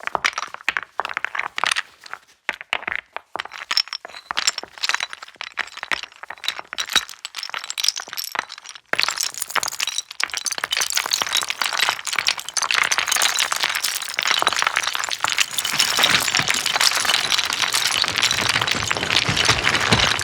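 Foley stones being worked by hand: separate clacks and crunches of stones knocking together, then about nine seconds in a dense, continuous rattle of many stones sliding and tumbling. It is performed to sound like someone sliding, falling and rolling down a slope of flat stones.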